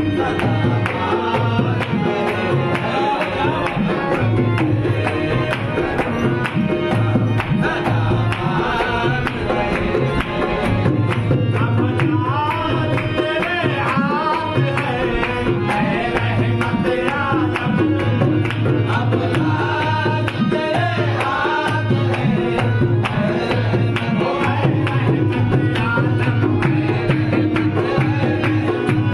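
Qawwali music: tabla drumming under a held drone, with singing in wavering melodic runs.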